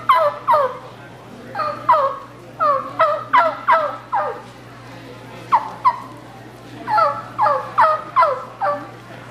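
Gobbler yelping on a turkey mouth call: slow, coarse yelps in short runs of several notes, each note dropping in pitch.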